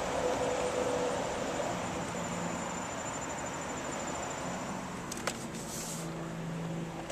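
Car rolling slowly over rough, cracked pavement, heard from inside the cabin as a steady engine and tyre noise. A single sharp click about five seconds in.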